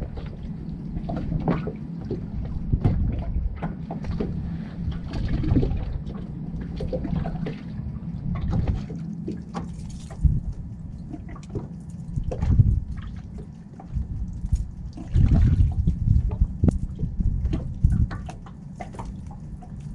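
Water sloshing, trickling and dripping around a kayak, with irregular knocks and splashes from handling.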